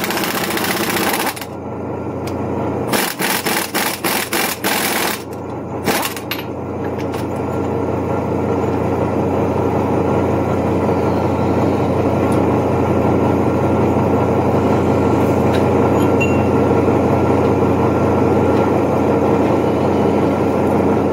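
A machine running steadily, with a rapid run of sharp knocks and clicks from about two to six seconds in, then a steady, denser running noise that cuts off suddenly at the end.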